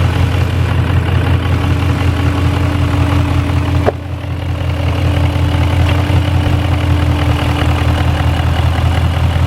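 BMW V8 engine idling steadily, just started after new ignition coil packs were fitted to cure misfires on cylinders 8, 4 and 5. A single sharp click comes about four seconds in.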